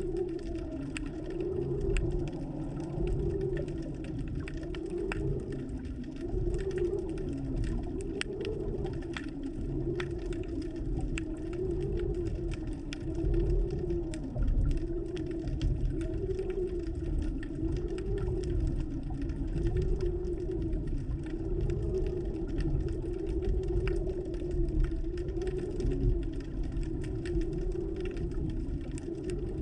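Underwater sound picked up by a submerged camera: a steady low hum that slowly wavers up and down, with scattered faint crackling clicks.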